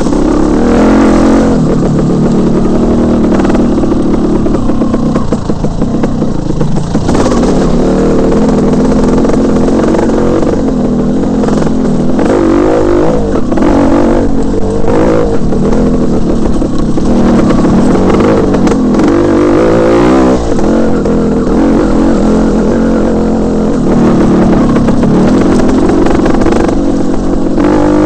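Off-road motorcycle engine close to the microphone, its pitch rising and falling continuously as the throttle is worked over a rough trail, with scattered knocks and rattles from the bike over the ground.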